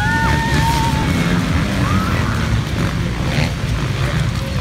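A large pack of off-road racing motorcycles accelerating hard away from a mass start, many engines revving together. Their pitch climbs in the first second, then they blend into one dense, continuous engine noise as the bikes pull away.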